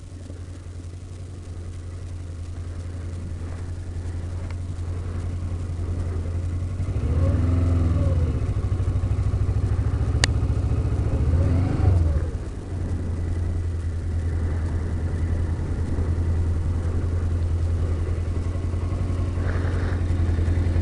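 Motorcycle engine running at low speed, heard from inside the rider's helmet, growing louder over the first several seconds. It is revved up and back down twice, about seven and eleven seconds in, then runs steadily. There is a single sharp click near the middle.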